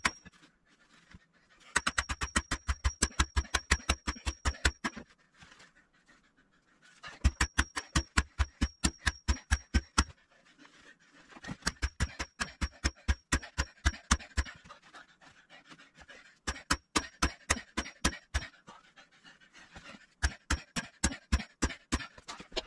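Sand point well pipe being pounded into the ground: runs of rapid metal strikes, about five a second, each run lasting a few seconds with short pauses between, and a high ring over each run.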